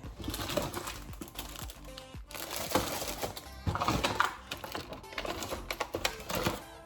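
Background music with a run of light clicks and clattering over it.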